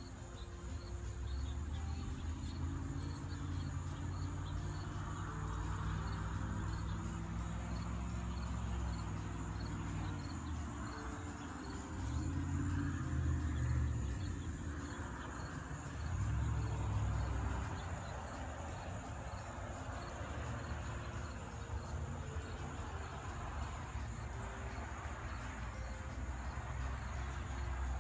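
Crickets chirping steadily in a fast even rhythm, with a low rumbling hum underneath that swells and fades several times.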